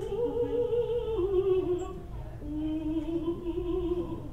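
A woman singing a slow tune unaccompanied, in long held notes that step down in pitch, the lowest held through the second half.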